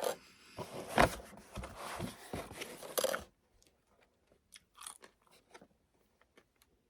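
Close-up eating: biting into and chewing a biscuit, with irregular bites and chewing through the first three seconds, then softer, sparser mouth sounds.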